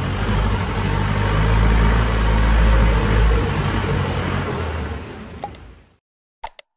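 Long-tail boat engine running steadily under way, with a dense rush of noise. It swells a little about two to three seconds in, then fades out near the end. A couple of short clicks follow.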